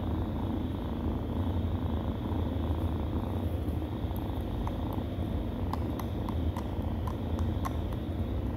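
Cat purring steadily, a continuous low rumble, as kittens nurse. From about halfway through come small soft clicks of the kittens suckling.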